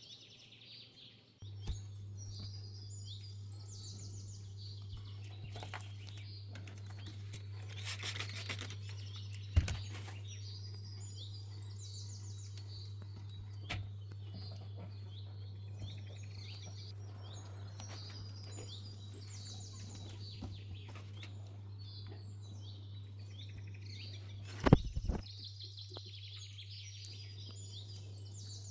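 Small birds chirping over and over in short trills. A steady low hum starts abruptly about a second and a half in. A few sharp knocks sound, the loudest near the end.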